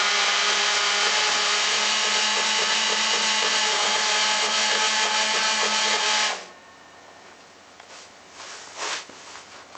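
Chainsaw engine running steadily at high speed, then cutting off abruptly about six seconds in. A faint noisy remainder follows, with a short louder burst near the end.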